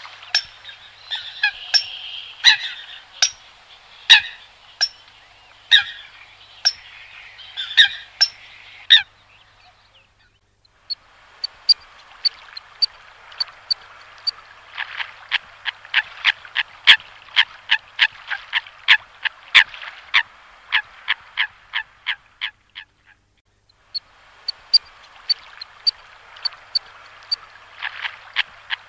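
Coots calling: a long series of short, sharp call notes, at times two or three a second, in runs broken by two brief silences.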